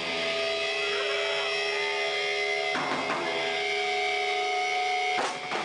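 Live band playing through amplifiers: steady, ringing held notes, with two quick drum or cymbal hits about three seconds in and another hit near the end.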